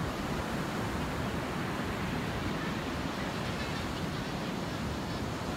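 Steady rush of sea surf on the beach, with wind buffeting the microphone.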